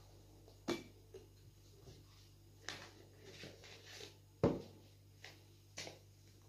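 A few light knocks and clicks of plastic bottles being handled on a table, the loudest a thump about four and a half seconds in as a SodaStream bottle is set down.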